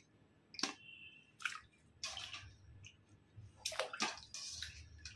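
Hands swishing and lifting fish pieces in a steel bowl of milky water: a few short, faint splashes and drips.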